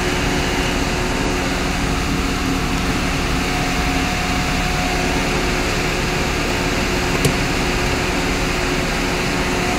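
Steady mechanical hum inside a car's cabin, even in level throughout, with a single sharp click about seven seconds in.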